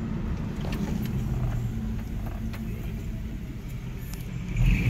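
Car engine and road noise heard from inside the cabin, a steady low rumble. Near the end a louder, steady low engine hum comes in.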